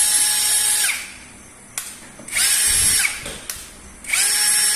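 21V cordless drill with a 10 mm chuck running in short trigger bursts: the motor whine ends about a second in, starts again a little after two seconds, stops, and starts once more near the end, each burst winding up and down in pitch. A short click sounds between bursts.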